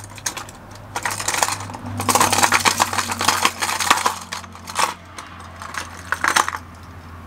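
Fishing lures clicking and clattering against each other and the plastic as a hand rummages through a plastic tackle box. There is a busy run of clinks for a few seconds, then a shorter flurry near the end.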